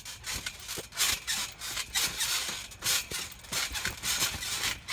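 Trampoline mat and springs creaking and rustling under players bouncing on it, a run of short scraping bursts about two a second.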